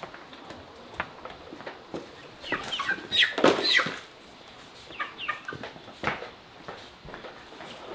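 Chickens calling: a run of loud, falling squawks and clucks in the middle, then a few more calls a second later. Light knocks are scattered throughout.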